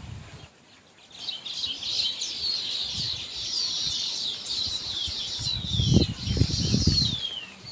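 A flock of small birds chirping together in a dense, high chorus of quick falling notes, starting about a second in. Low rumbling thuds, louder than the birds, come about two-thirds of the way through.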